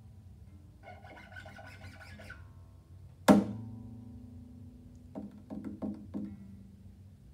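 Classical guitar played solo: soft high plucked notes, then about three seconds in a sudden loud strike on the strings leaves a chord ringing and slowly fading. A few more plucked notes follow around five to six seconds in.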